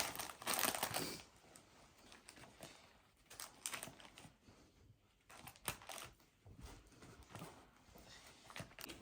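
Faint, scattered rustling and crinkling of snack packets and a bag as food is packed into it, busiest in the first second, then only odd soft rustles and knocks.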